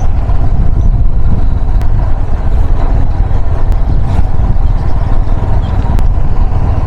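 A moving vehicle heard from on board: a steady low rumble of engine and road noise, with a few faint clicks.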